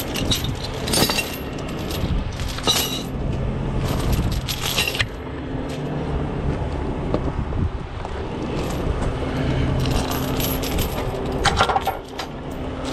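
Heavy tow chains clanking and rattling against each other and the pavement as they are handled, in several bursts. Under them a truck's diesel engine runs at a steady idle.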